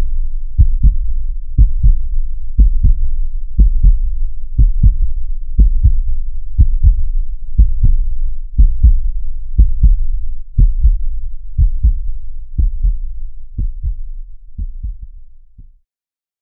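Heartbeat sound effect: low double thumps, lub-dub, about once a second, fading out and stopping near the end.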